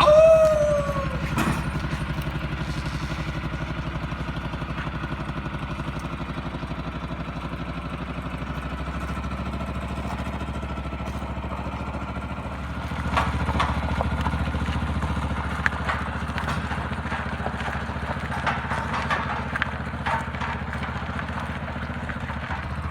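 A small engine running steadily with an even firing rhythm. It grows somewhat louder about 13 seconds in, with scattered clicks and knocks over the second half.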